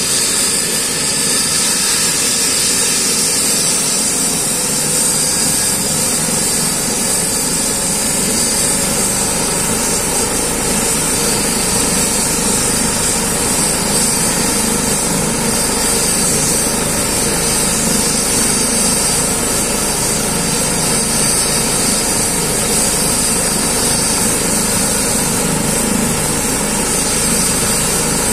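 Eurocopter EC135 air-ambulance helicopter running on the ground before lift-off: a steady high turbine whine over the rotor and engine noise. The low rotor rumble grows stronger about six seconds in.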